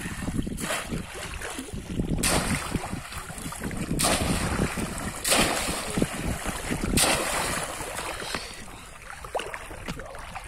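Bamboo plunge-basket fish trap (polo) slapped down into shallow muddy water again and again, each plunge a loud splash: about five in the first seven seconds, then quieter sloshing as a hand reaches into the trap.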